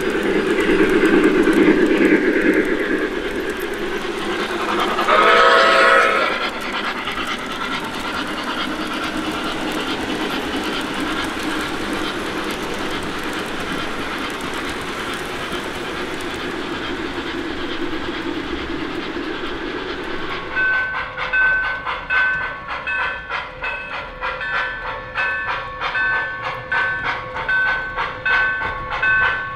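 O gauge model steam locomotive's onboard sound system running: a whistle blast about five seconds in over steady steam-like hiss, then from about twenty seconds in an even, repeating chuffing rhythm.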